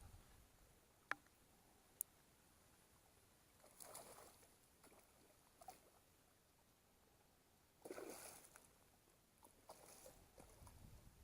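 Near silence with a few faint handling sounds: two short sharp clicks about one and two seconds in, and brief rustles around four and eight seconds in.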